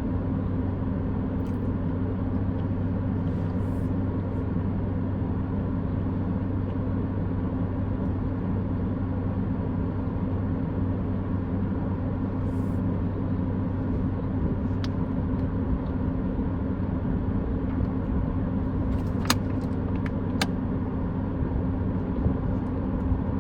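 Steady low hum of a car idling, heard from inside the cabin, with a few faint clicks near the end.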